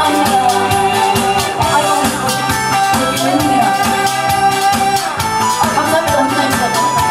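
A woman sings a Korean song into a microphone over loud amplified backing music with a steady beat.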